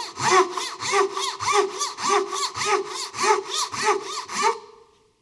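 Japanese super-fine 8-inch crosscut dozuki pull saw cutting down along the grain of 3/4-inch white oak, a rip cut made with fine crosscut teeth. Steady hand strokes, about two a second, stop about four and a half seconds in.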